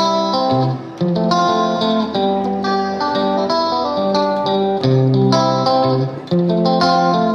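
Instrumental background music led by plucked guitar, with notes changing in a steady rhythm.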